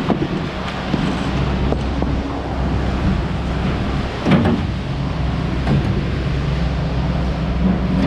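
Scania V8 truck engine running steadily, a low drone, with a brief clatter about four seconds in.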